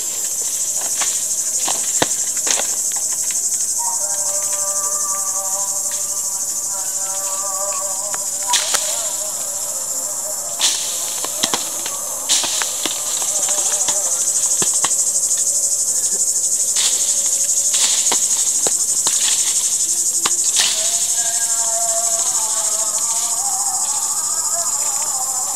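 Steady, high-pitched chorus of summer insects in the orchard trees, with a few scattered sharp taps. Twice, a faint wavering pitched sound runs for a few seconds.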